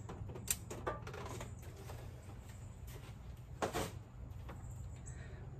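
Faint clicks and knocks of tools being handled around the engine, a sharp click about half a second in and a louder knock near the middle, over a steady low hum.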